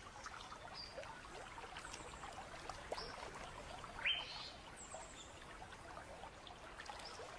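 Faint natural ambience of water trickling at a creek pool, with scattered small ticks and a few short high chirps. One louder chirp rises in pitch about four seconds in.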